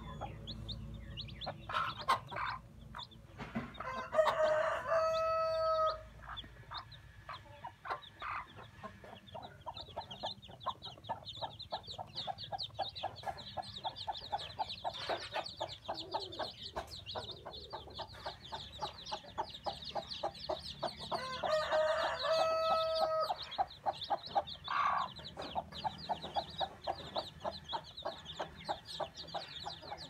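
A brood of young chicks peeping rapidly and without pause, while a rooster crows twice, about four seconds in and again about twenty-two seconds in, and a hen clucks now and then.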